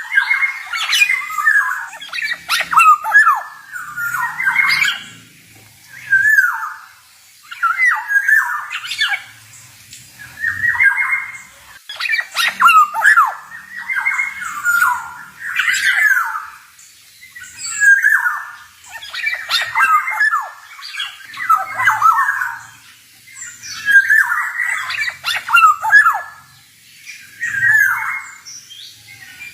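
Male black-naped oriole singing: short phrases of sliding whistled notes mixed with harsh, rasping notes, repeated about every two seconds.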